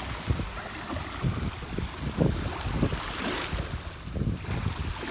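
Wind buffeting the microphone over the hiss of small waves washing up a sand beach.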